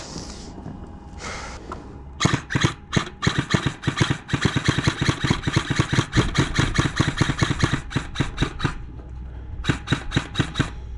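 A rapid, uneven run of sharp clicks and rattles over a low steady rumble, lasting several seconds. Near the end comes a short string of about six evenly spaced clicks.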